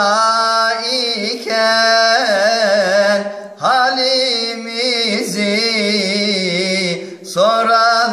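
A Turkish folk song: a solo singer holds long, melismatic notes with heavy vibrato over a steady drone, in phrases broken by short breaths about one, three and a half and seven seconds in.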